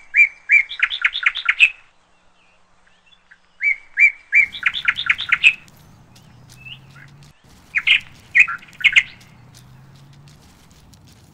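A songbird singing three phrases, each opening with a couple of clear notes and running into a quick series of rapid notes.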